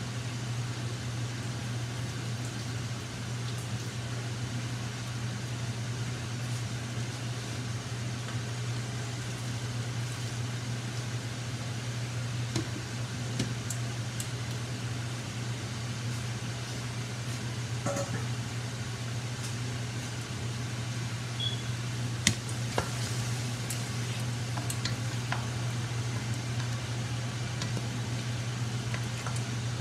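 Steady hum of a kitchen exhaust fan over the soft sizzle of oxtails simmering in sauce in a wide pan. A few light clinks of cookware and a utensil come in the middle and later on.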